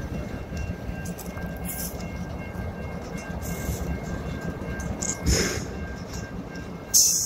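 Autorack freight cars rolling past on the rails: a steady low rumble of wheels with faint high squeal tones over it. A sharp clank about five seconds in, and a louder, sharp, hissy crack right at the end.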